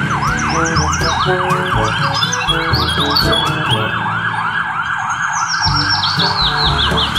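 Ambulance van's siren on yelp: a fast rising-and-falling sweep repeating about three to four times a second, over the low rumble of traffic.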